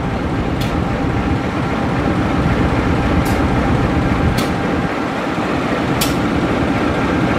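Diesel-electric locomotive pulling a passenger train away from a standstill, its engine running with a steady low rumble and hum. A few short, sharp clicks sound at irregular intervals.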